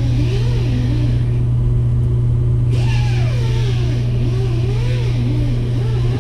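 Industrial sewing machine's motor running with a steady low hum.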